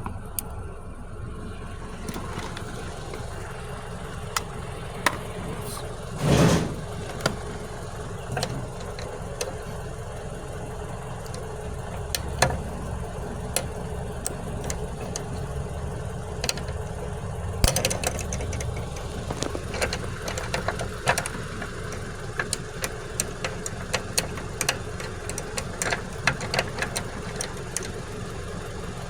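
An engine idling steadily in the background, with scattered sharp clicks and taps from handling small parts and tools. There is a louder brief burst of noise about six seconds in.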